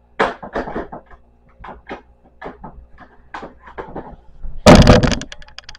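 Crayons clicking and tapping as they are set one by one back into an art set's drawer, then a louder clatter lasting under a second near the end.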